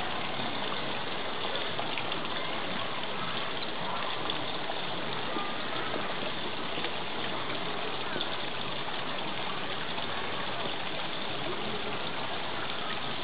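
Asian short-clawed otters chirping and squeaking, many calls overlapping into a continuous chatter over a steady rushing noise.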